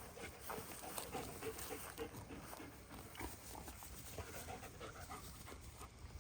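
German Shepherd dog panting.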